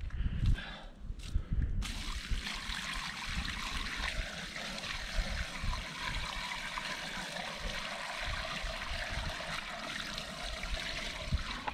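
Water poured from a bucket into a pipe, a steady rushing splash from about two seconds in, after a few low thumps. The water fills the pipe to float up a bottle hidden inside.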